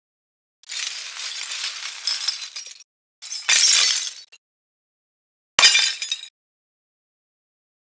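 Cracked iPhone 13 Pro Max back glass crunching and crackling in three separate bursts, the last opening with a sharp knock about five and a half seconds in.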